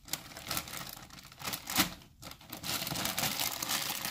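Crinkling and crackling of frozen greens and fruit being broken up by hand inside a blender jar: a run of small rustles and snaps that grows busier in the second half.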